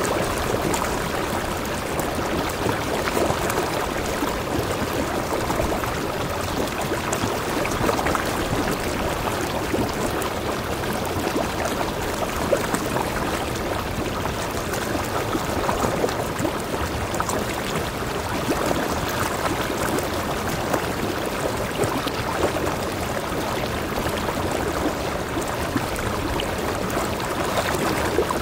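Rocky mountain stream spilling between boulders into a pool, a steady rush of splashing, flowing water.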